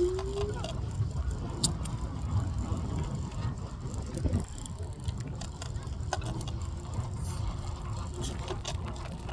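Evercross H5 hoverboard's hub-motor wheels grinding and hissing as they run, with many irregular clicks over a low rumble. A short rising whine comes right at the start.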